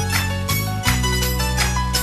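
Instrumental passage of a Hindi romantic song between sung lines: held low notes under a steady percussion beat, with no singing.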